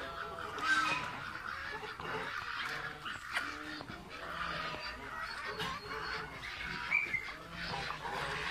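A flock of chickens clucking and calling as they feed, many short calls overlapping.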